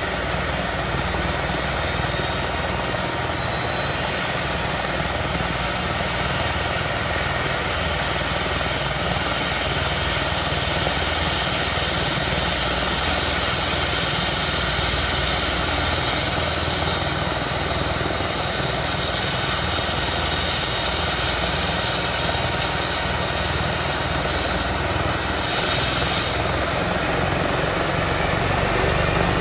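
Airbus H145 rescue helicopter running on the ground ahead of take-off: the steady whine of its twin turboshaft engines over the rush of the rotors. It grows slightly louder, and a high whine rises in pitch near the end.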